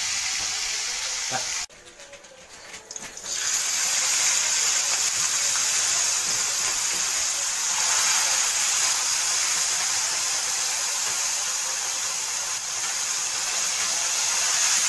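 Fish deep-frying in a pan of hot oil, a steady sizzle. It cuts out abruptly about two seconds in and comes back a second and a half later.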